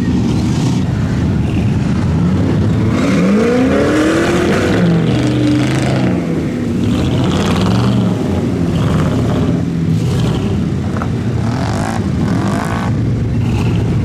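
Off-road vehicle engines running hard and revving, the pitch rising and falling a few seconds in.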